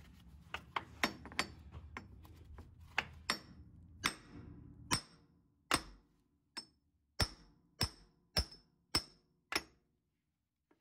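Ball peen hammer striking the rusted factory front output flange of a Jeep Wrangler JK's transfer case, knocking it loose so it can come off the shaft. Each blow is a sharp metal-on-metal strike with a short ring. Lighter, quicker taps in the first half give way to about seven harder, evenly spaced blows, a little under two a second.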